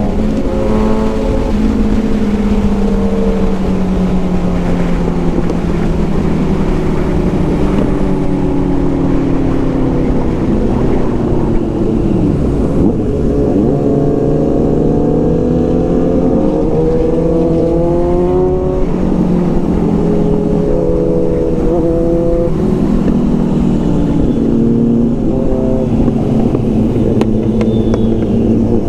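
Sport-motorcycle engines with full-system exhausts, heard while riding. The engine note falls slowly at first, then repeatedly rises and drops as the bikes accelerate and shift gears, over a steady low rumble of wind and road noise.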